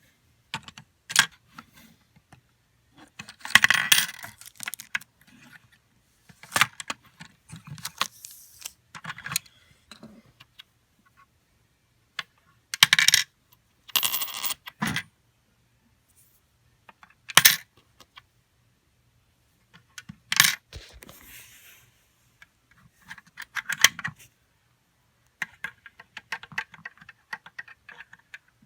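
A LEGO vending machine in use: coins dropping through it and its plastic brick mechanism clicking and clattering. The sounds come in short bursts every few seconds, with quiet gaps between.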